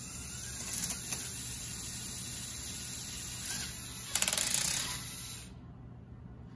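LEGO spinner (spinning top) whirring on an EV3 robot's motor-driven launcher, with a couple of clicks about a second in and a burst of quick rattling a little after four seconds in. The whir stops about five and a half seconds in.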